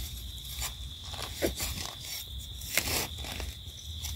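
Termite mushrooms (Termitomyces) being pulled and snapped out of the soil by hand among dry leaf litter: a few short, sharp crunches, the loudest near three seconds in.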